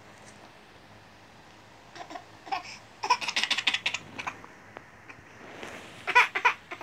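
A toddler giggling in short bursts, starting about two seconds in, with a quick run of giggles and a last burst near the end.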